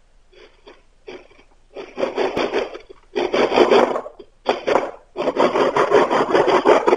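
A blade scraping and cutting into a wooden stick in repeated strokes. A few short faint strokes come first, then loud, long, rasping strokes from about two seconds in, the longest near the end.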